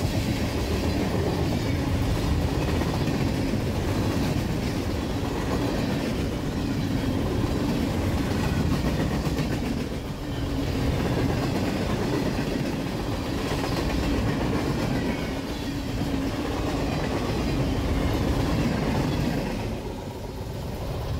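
Freight train cars rolling past at close range: steel wheels clattering on the rails over a steady low hum. The sound falls away near the end as the last car passes.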